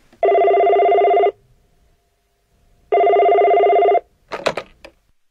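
Telephone ringing twice, each ring a warbling electronic trill lasting about a second, followed by a few short clicks near the end.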